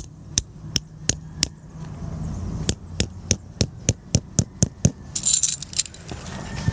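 A run of sharp, evenly spaced knocks, about three a second, that stops briefly and then starts again. Near the end comes a short metallic jingle.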